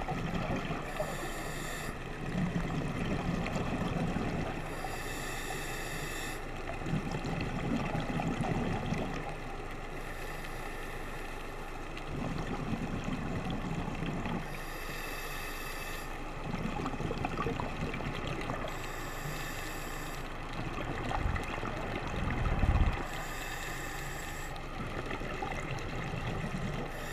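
A scuba diver breathing through a regulator underwater. A hissing breath comes about every four to five seconds, alternating with the low rumble of exhaled bubbles.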